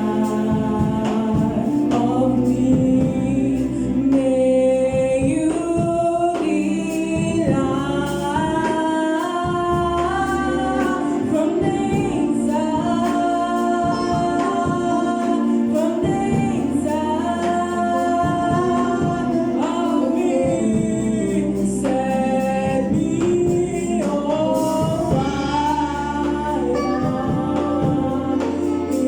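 Gospel choir singing with band accompaniment, bass notes and a steady beat under the voices.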